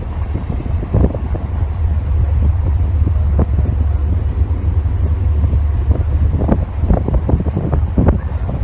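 Wind buffeting the microphone aboard a ship at sea: a loud, steady low rumble broken by irregular gusts.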